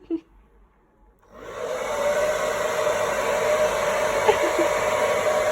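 Handheld hairdryer switched on a little over a second in, rising within about half a second to a steady blowing hiss with a steady hum in it.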